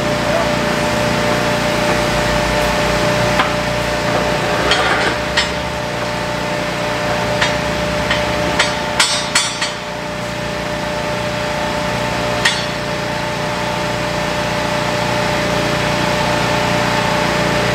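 Scattered sharp metal knocks and clanks from a snap-on dual wheel's clamps and hooks being fitted against a tractor rim, with a quick run of them about nine seconds in, over a steady machine hum.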